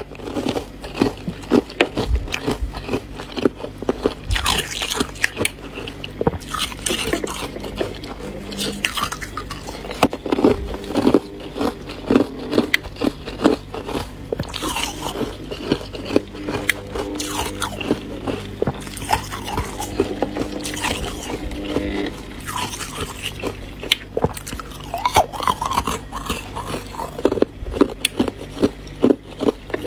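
Buckwheat ice being bitten and chewed: a continuous, irregular run of sharp crunches and cracks.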